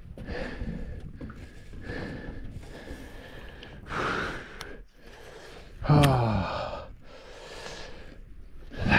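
A man breathing hard and gasping, a puff of breath about once a second, with a louder voiced sigh falling in pitch about six seconds in: he is winded after fighting and landing a big fish.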